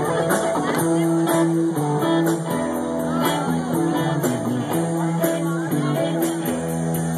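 Live band playing electric guitars over a drum kit, with the cymbals keeping a steady beat.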